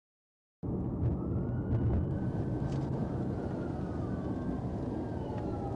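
Patrol car road and engine noise heard from inside the cabin at highway speed, a steady low rumble that cuts in abruptly about half a second in. A police siren wails faintly over it from about a second and a half in, its pitch sliding slowly up and down.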